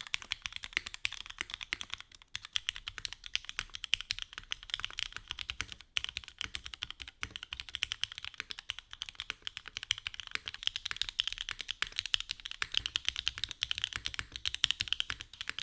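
Fast, continuous typing on a Mode Sonnet custom mechanical keyboard: a dense run of keystrokes, each a bright click over a low thud, with a couple of brief pauses.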